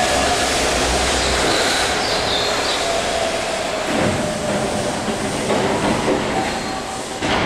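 Keihan 13000 series electric train running out of an underground station, a steady rumble with a faint steady whine, and two sharp clacks, about four seconds in and near the end.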